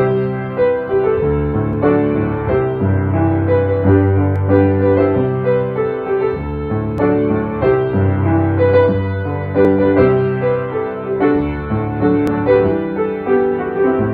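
Solo piano music playing slowly, with held chords that change about once a second over low bass notes.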